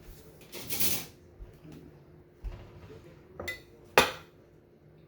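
Spoon and dishes clinking as honey is spooned out: a scraping rustle about a second in, then two sharp clinks near the end, the second the loudest.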